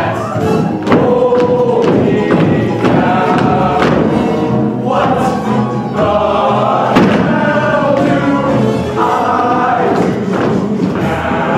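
A stage musical's ensemble singing a number in chorus with accompaniment, with several sharp thumps along the way.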